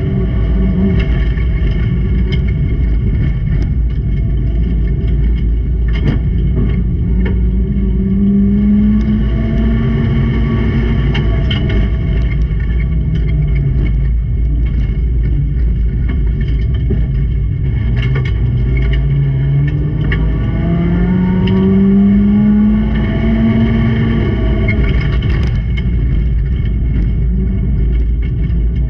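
Junior race car engines revving hard, their pitch climbing and dropping as the cars accelerate and lift, with scattered sharp knocks and clatters over the engine noise.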